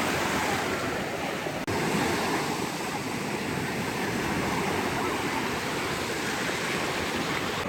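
Ocean surf breaking and washing up the beach: a steady rushing wash of waves, which drops out for an instant a little under two seconds in.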